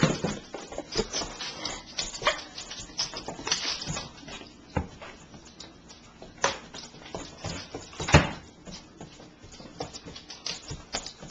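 Two puppies play-wrestling on a laminate floor: scattered clicks and knocks of claws and bodies on the floor, with short puppy whimpers. One sharp knock, louder than the rest, comes about eight seconds in.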